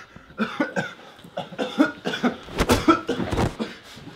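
A person coughing and making short strained vocal sounds during a scuffle, with heavy thuds near three seconds and three and a half seconds in.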